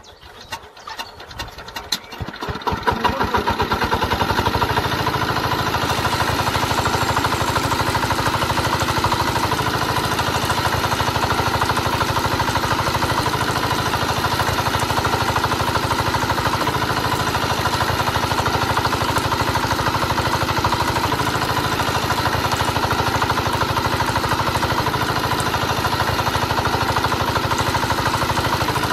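Small motor of a home-made miniature tractor switched on, ticking faster and faster as it spins up over the first few seconds, then running steadily with a fast whir while it drives a small water pump through rubber-band belts.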